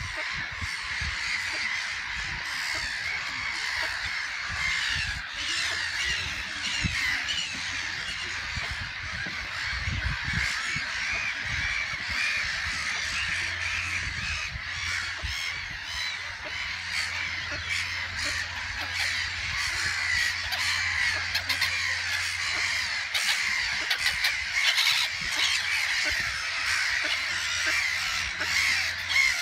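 A brood of ducklings peeping: many overlapping high chirps in a dense, unbroken chorus.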